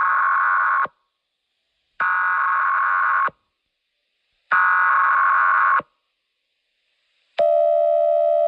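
Telephone-style electronic tones: three steady beeps, each about a second long and a second apart, then a lower continuous tone that begins near the end and holds.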